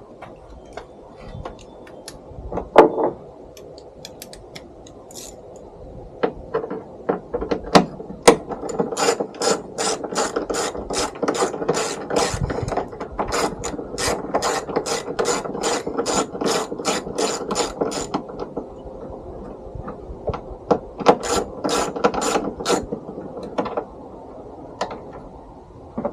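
Quarter-inch drive socket ratchet clicking as bolts are loosened, in a long, even run of about three clicks a second, a pause, and then a shorter run, with a few scattered knocks of the tool before the first run.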